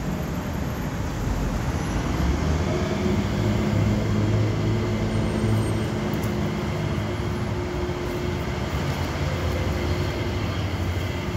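Steady low rumble of motor traffic with a continuous engine hum.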